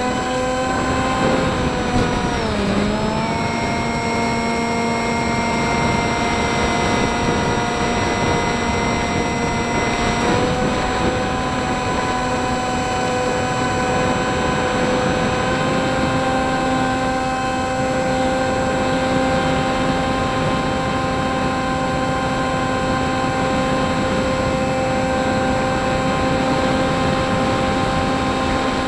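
Model plane's motor and propeller whining steadily in flight, with wind rushing over the onboard camera's microphone. The pitch dips briefly about two and a half seconds in, then shifts slightly about ten seconds in.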